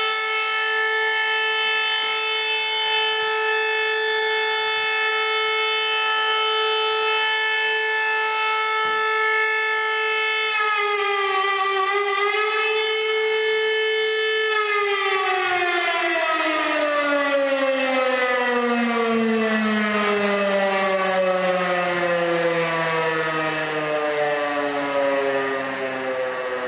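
Civil defence siren sounding in remembrance of the Ghetto Uprising. It holds one steady tone for about ten seconds, dips and rises once, then winds down in a long falling pitch.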